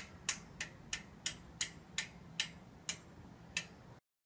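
A run of sharp, clean ticks, about three a second at first, slowing gradually, with the last tick about three and a half seconds in.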